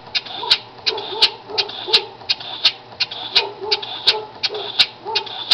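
Small homemade oscillating-cylinder compressed-air motor running steadily: a clack with a puff and hiss of exhausting air about three times a second, every other clack louder, in time with each turn of the flywheel.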